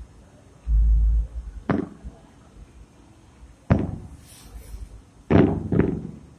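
Aerial firework shells bursting in the distance: four sharp booms, at about two, four, five and a half and six seconds in, the last two close together, each trailing off in a rolling echo. A short low rumble comes about a second in.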